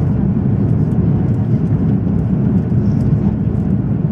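Steady low rumble of an Airbus A340-600 in motion, its four Rolls-Royce Trent 500 engines and airflow heard inside the passenger cabin.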